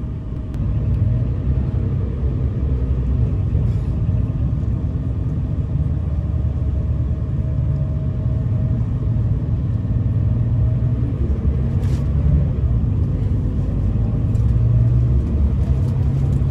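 Engine and road noise heard inside a moving Scania Irizar Century coach: the Scania K340EB4's diesel runs steadily under way with a low rumble that gets a little louder about a second in.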